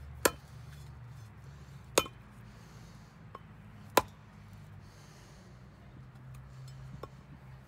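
Three sharp knocks about two seconds apart: a blade template being tapped against a split of red oak firewood.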